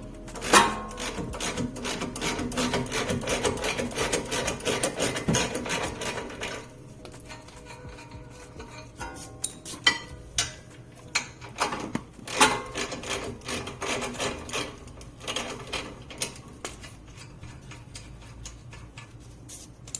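Hand or power tools working on a car's front suspension bolts: a run of rapid mechanical clicking with a steady tone for several seconds, then scattered separate clicks and metal knocks.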